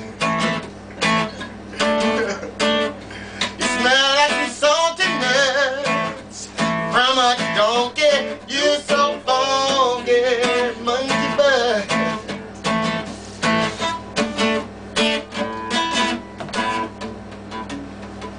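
Music: strummed acoustic guitar, with a wavering, bending melody line over it for much of the time.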